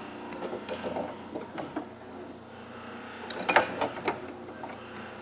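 Hand-tool handling in a woodshop: scattered clicks and knocks and a louder clatter about three and a half seconds in, as a lathe turning tool is picked up, over a steady low machine hum.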